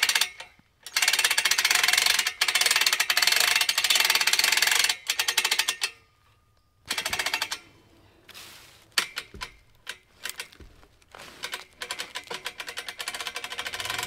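Hand-crank ratchet winch on a homemade log-skidder arch clicking rapidly as it is cranked to lift a log, in two runs over roughly the first five seconds. After a short quiet, scattered light clicks and knocks follow.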